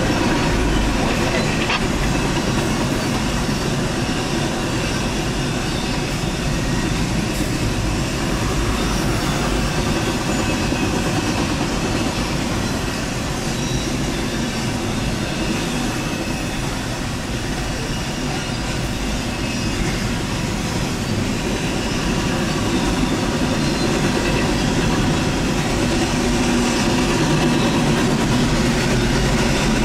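Double-stack intermodal container freight train rolling past a grade crossing, a steady, unbroken noise of wheels on rail as the container cars go by.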